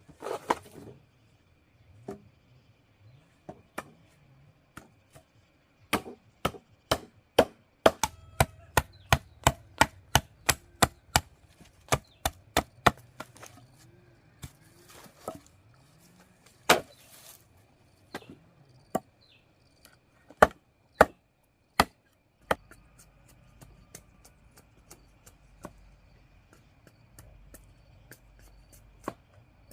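Blade chopping into wood or a wooden surface: a fast, even run of strokes at about two to three a second for several seconds, then slower single chops with pauses between them.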